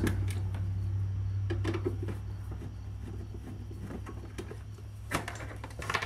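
Hand screwdriver backing out the screws of a refrigerator's control board housing: scattered light clicks and scrapes, with a sharper click about five seconds in, over a steady low hum.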